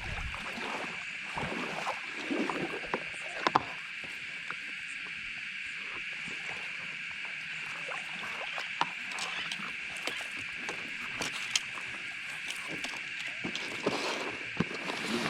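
Water splashing and short knocks from paddling a paddleboard on a river, loudest in the first few seconds. A steady high-pitched hum runs underneath.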